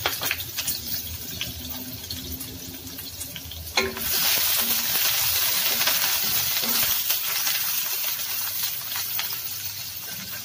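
Chopped red onions sizzling and crackling in hot oil in a nonstick wok. About four seconds in, a wooden spatula knocks the pan and stirs them, and the sizzle turns much louder, then slowly dies down.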